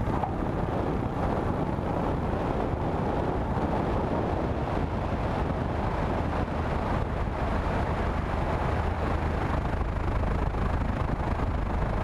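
Steady rushing noise of wind, engine and tyres, picked up by a camera mounted under a light aircraft as it rolls at speed along the runway. The noise stays even throughout.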